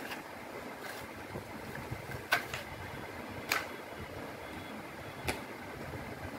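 Paper and cardboard packaging being handled: three short, sharp snaps a second or two apart over a steady background hiss.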